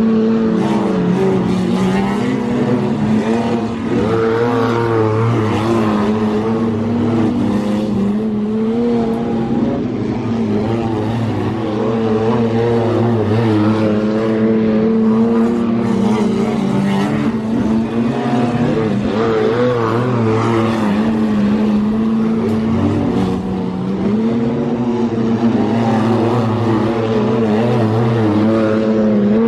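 Wingless sprint car engine at racing speed on a dirt oval during a solo time-trial run. It runs hard without a break, its pitch rising and falling through the laps, with a brief dip about three quarters of the way in.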